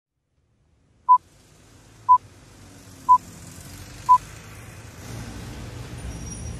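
Film-leader countdown beeps: four short, identical high beeps one second apart, the first about a second in. Beneath them a low rumble and hiss grow steadily louder.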